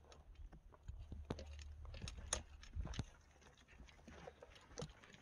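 Irregular clicks and knocks of footsteps and goat hooves on rock, with clothing rubbing near the body-worn microphone and a low rumble underneath.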